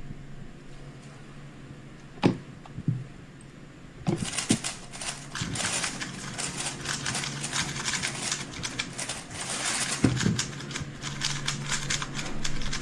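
Speed cube being turned very fast: a dense, rapid run of plastic clicking that starts about four seconds in, after two single knocks.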